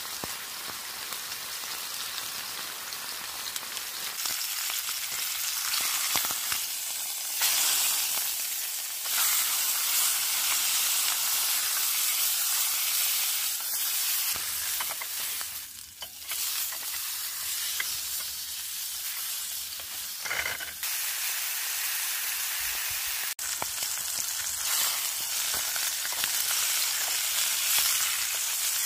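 Marinated sirloin steak sizzling steadily as it fries in coconut oil in a pan, dipping briefly about halfway through.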